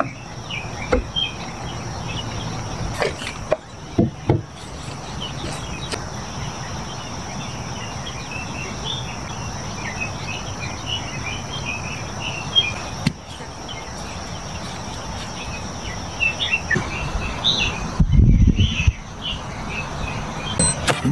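Outdoor daytime ambience: a steady high insect buzz under a hiss of background noise, with many short bird chirps scattered throughout. A brief low rumble comes near the end.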